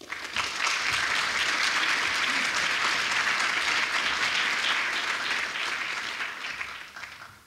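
A large audience applauding. It starts at once and tapers off near the end.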